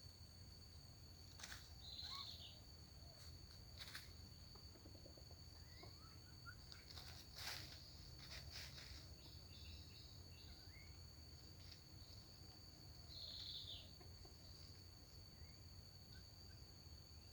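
Faint, steady high-pitched insect drone, with a few sharp clicks and two short rasping calls.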